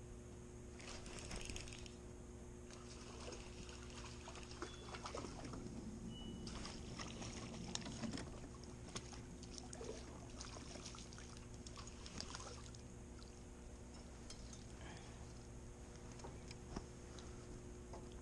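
Light water splashing and trickling beside a small boat, with scattered small clicks, over a steady low hum.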